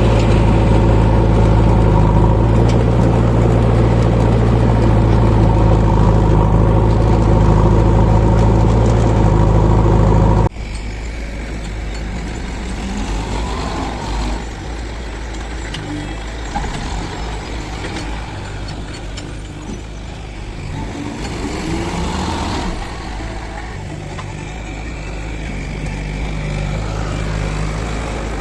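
Heavy diesel engine of a backhoe loader running steadily and loud close by. About ten seconds in, the sound cuts off sharply to a quieter, more distant engine whose pitch rises and falls as the machine works.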